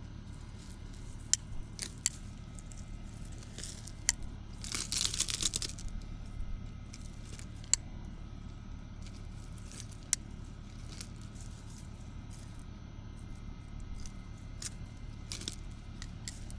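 Weeds and brush being pulled and handled: scattered sharp snaps and clicks, with a brief crunching, tearing rustle about five seconds in.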